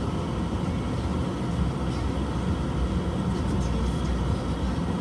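A truck engine running steadily at idle.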